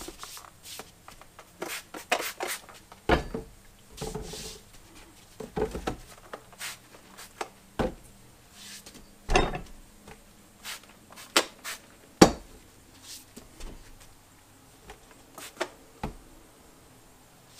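Hand trigger spray bottle squirting soapy water onto a small mower tire in short spritzes, checking for air leaks around the rim. Mixed in are clicks and rubbing as the tire is turned by hand, and a few louder knocks, the loudest about twelve seconds in.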